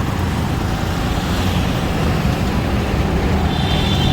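Steady road and engine noise from a vehicle driving in city traffic, heaviest at the low end, growing slightly louder toward the end.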